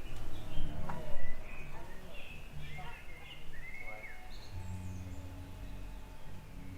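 Small songbirds chirping in short high notes, with one arching whistled call about three and a half seconds in, over a low steady background hum of the village.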